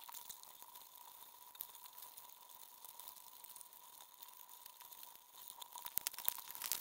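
Dungeness crabs at a baited crab trap, heard underwater: a dense, faint crackle of small clicks and scrapes, with a burst of sharper clicks near the end. A faint steady tone runs underneath.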